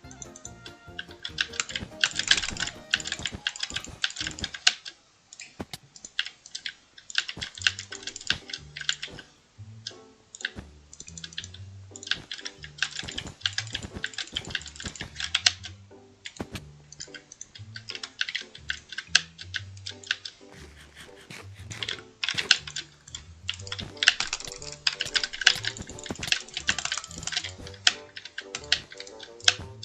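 Computer keyboard being typed on quickly, in runs of rapid key clicks a few seconds long with short pauses between, over background music with a stepping bass line.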